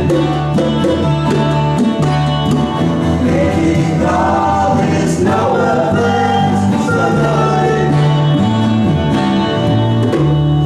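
Amateur band playing a song live with singing, over held low bass notes.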